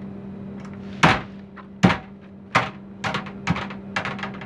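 A 14-pound sledgehammer, released from a 500 mm pull-back on a hinge, strikes ribbed aluminium caravan sheet metal about a second in. It bounces and knocks against the sheet five more times over the next three seconds, the later knocks fainter.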